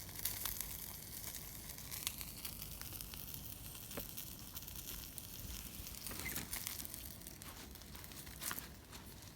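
Small wood fire in a compact fire pit crackling irregularly, with scattered sharp pops.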